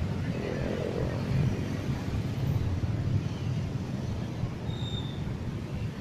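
Indonesian train going by, a steady low rumble of wheels and engine, with one brief high-pitched squeal about five seconds in.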